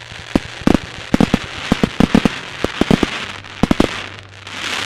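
Aerial fireworks going off: a rapid string of sharp bangs for about three and a half seconds over a steady hiss, and a louder hiss swelling near the end as the glittering stars burn out.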